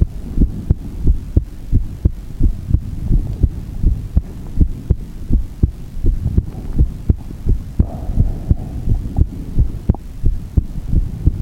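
Human heartbeat picked up close against the chest: a steady, regular rhythm of low thumps, the heart tones.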